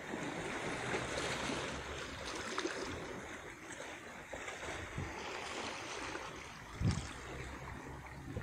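Shallow stream water running and lapping over stones, with wind rumbling on the microphone and a single thump about seven seconds in.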